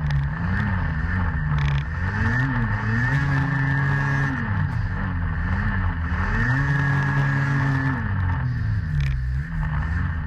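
Snowmobile engine running and revving, its pitch climbing and dropping again and again, over steady track and running noise.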